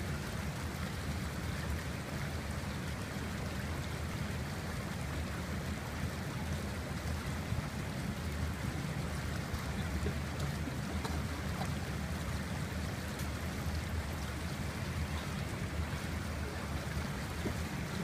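Steady outdoor background noise: an even hiss over a low rumble, with no distinct splashes or other events.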